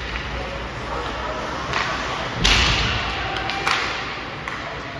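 Ice hockey play in an echoing rink: a few sharp knocks from the puck, sticks and boards, the loudest about two and a half seconds in and others about two, three and a half and four and a half seconds in.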